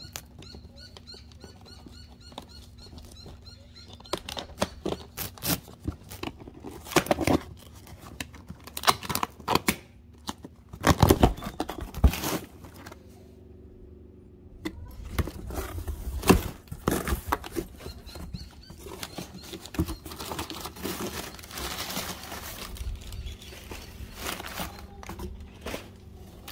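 A cardboard shipping box being opened: a utility knife slitting the packing tape, cardboard flaps pulled and torn open, then packing paper and bubble wrap crinkling and rustling as hands dig through them.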